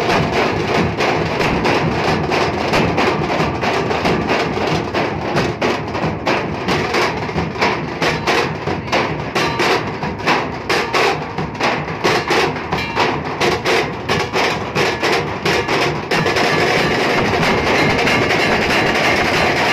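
Nashik dhol ensemble: many large metal-shelled barrel drums beaten with sticks in a loud, driving rhythm. About sixteen seconds in, the separate beats merge into a continuous fast roll.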